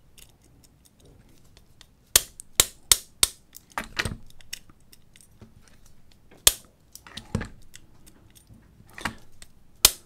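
Small mallet tapping a hand-filed bump key seated in a Master Lock laminated padlock: about ten sharp metallic taps at uneven intervals, with light rattling of the key and lock between them. The strikes are made under too much turning tension, and the lock gives way with the last tap near the end.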